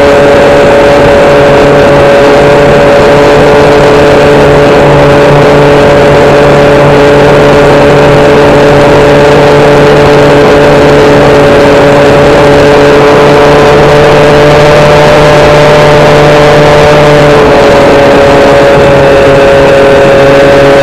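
Electric motor and propeller of a Hobbyking SkyEye FPV plane, heard from the onboard camera in flight: a loud, steady drone with two clear tones over wind rush, its pitch easing up slightly and then dipping a little near the end.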